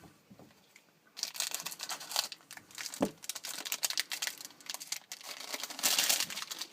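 Hockey card packaging being torn open and crinkled by hand, with a short knock about three seconds in; the rustling is loudest near the end.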